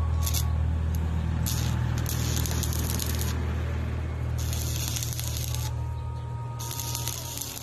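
Stick welding arc crackling and sizzling in three runs of one to two seconds each, after a brief spark of an arc strike about a third of a second in, as the electrode welds a square steel post. A steady low hum runs underneath.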